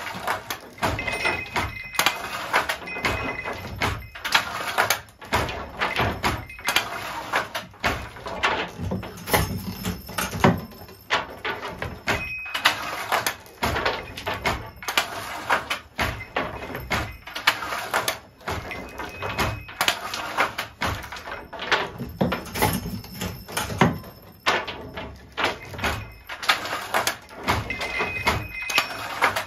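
Wooden hand loom with a Jacquard machine in use, weaving linen damask: a steady run of wooden clacks and knocks as the loom works. Brief squeaks recur every several seconds.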